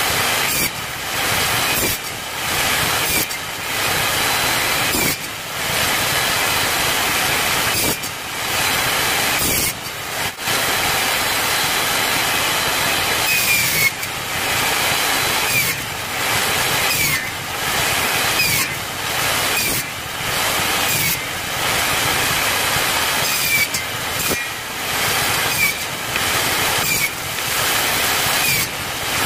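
Table saw running and making repeated crosscuts through wooden strips, chopping them into short wedge-shaped segments. The cutting noise dips briefly between cuts, about once every second or two.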